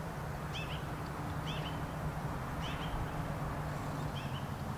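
Black-billed magpie squawking, short calls repeated about once a second over a low steady hum.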